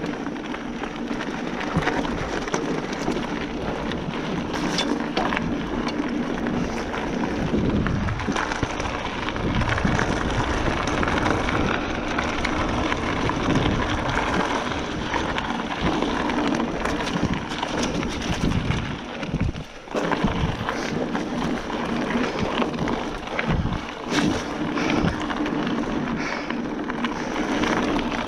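A Giant Fathom 29er hardtail mountain bike riding down a trail: tyres rolling over the trail surface with the bike rattling, and wind buffeting the microphone. The noise eases briefly once, a little over halfway through.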